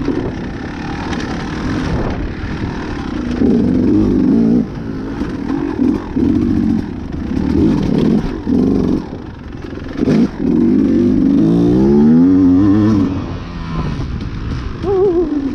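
Dirt bike engine revving under riding load, its pitch rising and falling again and again as the throttle opens and closes, with a long climbing rev toward the end.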